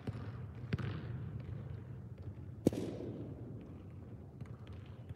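A few sharp knocks of a soccer ball being touched as it is dribbled on artificial turf, the loudest about two and a half seconds in, echoing in a large indoor hall.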